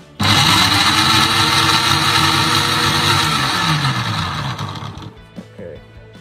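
Electric mixer-grinder motor switched on and running loud at full speed, blending strawberries in its jar, then slowing with a falling pitch and dying away about five seconds in.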